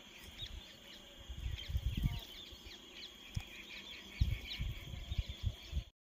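Small birds chirping outdoors: many short, quick, falling chirps over a steady high-pitched insect drone, with bursts of low rumble at times.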